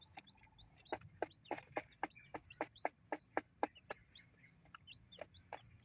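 Native chicken chicks and their hen pecking feed grains off a cardboard sheet: a fast, irregular run of sharp taps, thickest between about one and four seconds in, with the chicks' short high peeps in between.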